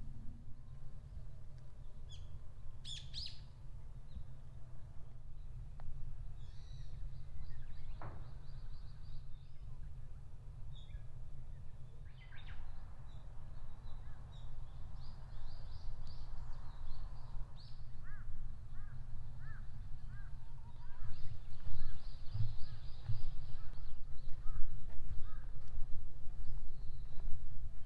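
Wild birds chirping and calling in woodland: short high calls and quick runs of notes come now and then, over a steady low rumble that grows louder in the last third.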